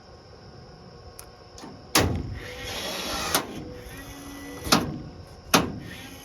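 Four sharp metal bangs, a little over a second apart, with a stretch of rattling between the first two, as the sheet-metal deck panel of the race car is fitted into place.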